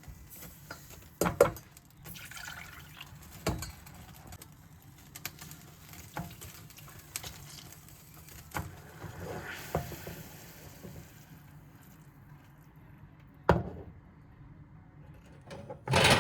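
Kitchen work sounds: scattered sharp knocks and clinks of utensils and containers being handled, with liquid being poured or running. The loudest knock comes near the end.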